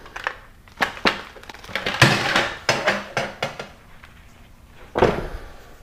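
Hands working with a roll of high-temperature tape on a wooden board: scattered light knocks and taps, and two short rasping rips, about two seconds in and near the end, as tape is pulled off the roll.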